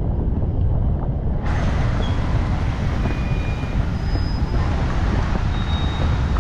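Wind buffeting the microphone, a heavy, uneven low rumble.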